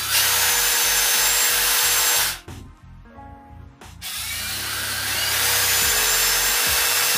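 Two cordless 18V drill drivers spinning free in the air with no load, a steady motor whine. They stop about two seconds in and start again about a second and a half later.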